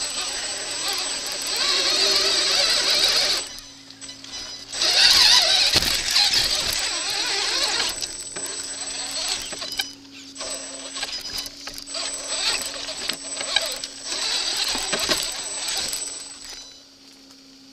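A 1/8-scale Redcat brushless RC rock crawler driving over rocks, heard from a camera mounted on the truck: the electric motor and gears whine while the tyres scrabble on stone. It comes in stretches as the throttle is applied and let off, with a pause about four seconds in, is loudest about five seconds in, and fades near the end.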